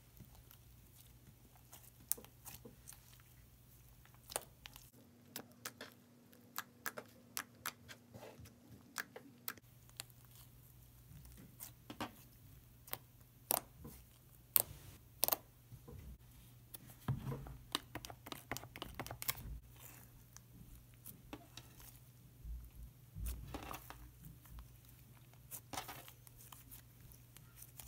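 Soft, stretchy slime being kneaded and pulled by hand, giving irregular sticky clicks, pops and crackles over a faint steady low hum.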